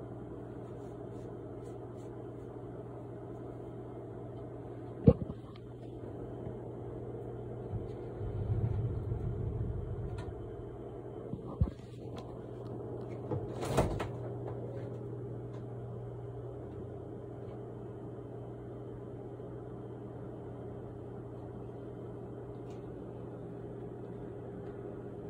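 Kitchen handling sounds: a few sharp knocks and clatters, the loudest about five seconds in, and a brief rustling stretch a few seconds later, over a steady low hum.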